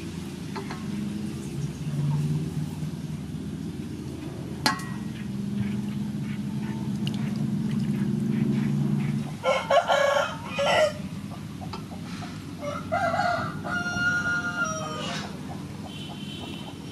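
Chickens clucking and a rooster crowing, loudest from a little past halfway: a burst of loud calls, then a long crow with held notes, and a fainter call near the end. Before that there is a low steady hum and a single sharp click about five seconds in.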